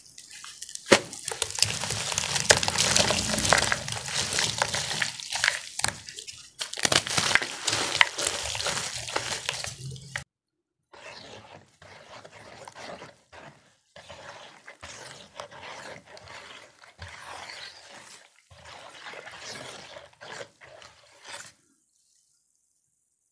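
Wet cornstarch chunk coated in blue iron oxide being squeezed and crushed by hand in water, a loud stretch of squelching, splashing and crackling. After a sudden cut about ten seconds in, a brush swishes through the water in quieter stop-start strokes, which stop near the end.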